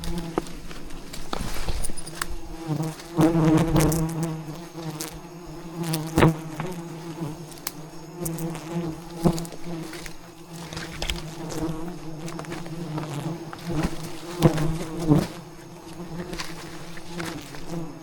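Wild bees buzzing around the nest, a steady hum that swells and fades as bees fly close past, with scattered sharp clicks and knocks.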